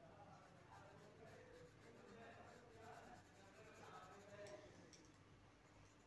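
Near silence: a coloured pencil faintly scratching on paper as it shades in colour.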